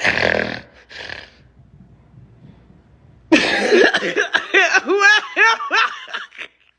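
A woman coughs twice. After a short pause she makes a run of quick wordless voiced sounds that rise and fall in pitch.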